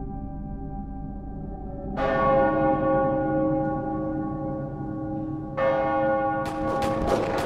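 A church bell tolling twice, about three and a half seconds apart, each stroke ringing on with many overtones over the fading hum of the one before. A cluster of short, sharp clicks comes near the end.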